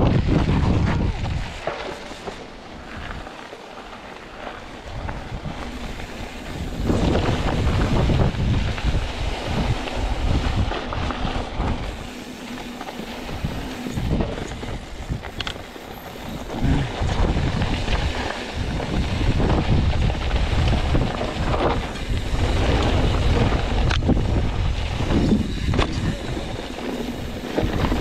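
YT Capra full-suspension mountain bike riding down a dirt trail: wind buffeting the microphone and tyres rolling over dirt and rocks, with scattered clicks and rattles from the bike. The rush swells and eases, quieter for a few seconds near the start and again around the middle.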